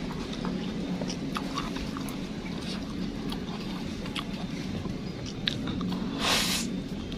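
Mouth sounds of eating juicy pomelo segments dipped in sweet sambal: soft chewing with small wet clicks, then a short wet slurping bite about six seconds in. A steady low hum runs underneath.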